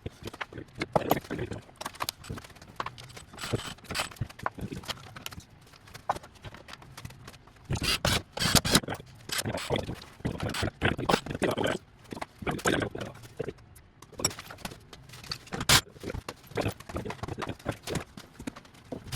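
A run of irregular clicks and knocks from hand work on the car, with a busy cluster about halfway through and one sharp louder click near the end.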